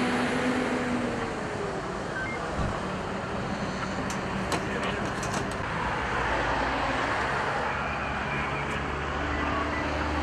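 Steady road traffic noise with a low engine hum, and a few sharp clicks about four to five seconds in.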